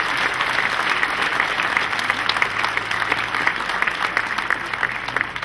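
Crowd applauding: many people clapping at once, dying away near the end.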